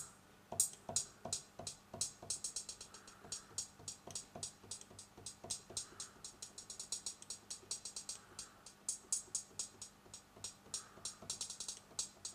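A synthesized drum sound from the FLEX synth in FL Studio, being used as a hi-hat, ticking in a quick rhythm over softer drum hits. It is being reshaped with the synth's macro knobs into a hi-hat sound.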